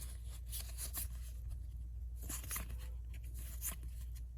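Magic: The Gathering trading cards sliding and rubbing against each other as they are flipped through by hand, a few short papery swishes over a steady low hum.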